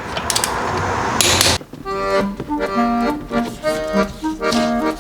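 A hissing mechanical noise with clicks, ending in a loud crackling burst, cuts off about a second and a half in. Accordion music follows, a melody of held notes over a steady bass.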